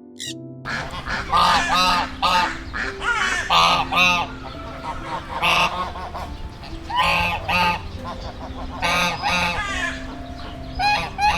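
A flock of geese honking in repeated clusters of loud calls, starting about half a second in, with light background music underneath.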